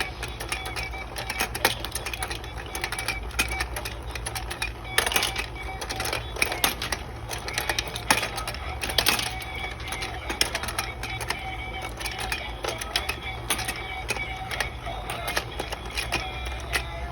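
Battery-powered toy fishing game running: a small motor whirring and steady rapid plastic clicking and rattling, with a faint tinny tune.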